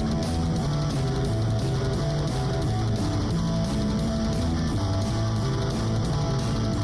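Background music: a guitar-driven rock track with a steady beat.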